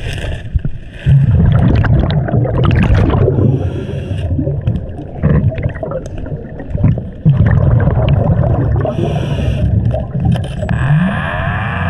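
Underwater scuba breathing: a diver's regulator hissing on each inhale and exhaust bubbles gurgling out on each exhale, in irregular surges heard through water.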